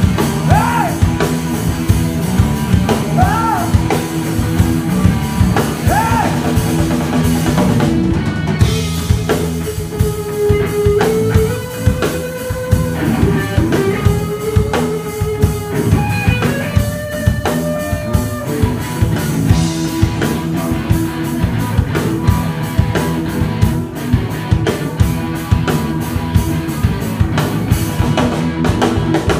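Live rock band playing: drum kit with a steady beat, guitars and bass. About eight seconds in the chords thin out under a lead line of long, bending notes, and the full band comes back in about twenty seconds in.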